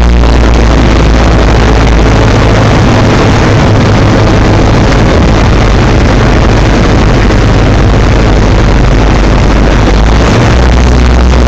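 Light aircraft's engine and propeller running loudly, heard from inside the cockpit; its deepest tone drops away about two and a half seconds in and comes back near the end.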